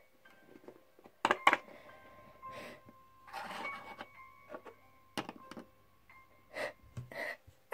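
Plastic toy figures and toy furniture handled and set down on a wooden surface: sharp taps and clicks, loudest twice a little over a second in, with some handling rustle. Faint background music runs underneath.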